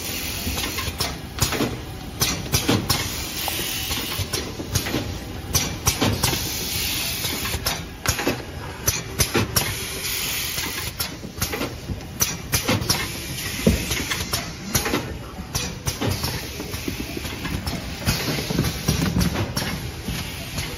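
Automatic overwrapping machine (BTB-450) running as it wraps boxes of healthcare products: a steady mechanical hiss with frequent, irregular clacks and knocks from its moving parts.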